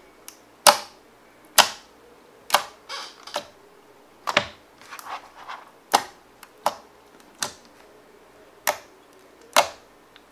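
Fingers poking into clear slime mixed with gold leaf flakes, making a sharp sticky pop about once a second, with a few softer clicks between.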